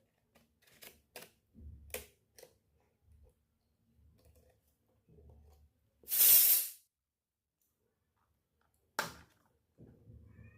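Miniature toy kitchen pieces being handled: a run of small clicks and taps, light rustling, then a short loud hiss about six seconds in and a single sharp click near nine seconds.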